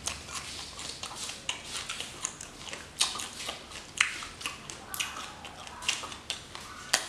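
Crunching and chewing of raw spicy field crabs, shells and all, with wet mouth smacks and short sharp cracks as the shells are bitten and pulled apart; the loudest cracks come about three and four seconds in, and another near the end.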